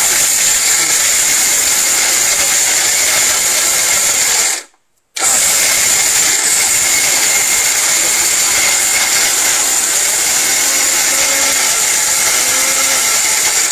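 Nova 1350-watt mixer grinder's motor running under load, grinding whole dried turmeric in its small steel jar, with a steady high whine over the grinding noise. It stops for about half a second some four and a half seconds in, then runs on.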